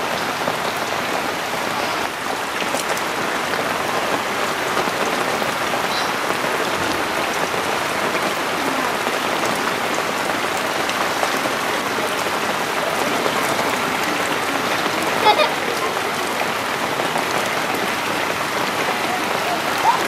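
Steady rain falling on shallow floodwater and wet grass, an even hiss throughout.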